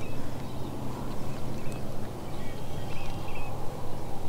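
Outdoor ambience: a steady low rushing noise with a few faint, short bird chirps.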